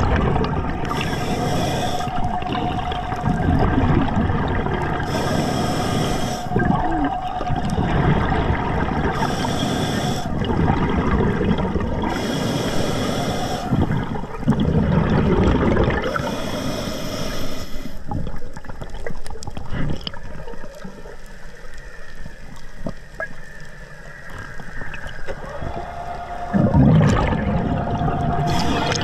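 Scuba diver breathing through an Atomic regulator: a hissing, bubbling exhale every three to four seconds, alternating with the low rush of inhaling. The breathing lets up for several seconds past the middle. A steady hum is heard at the start and again near the end.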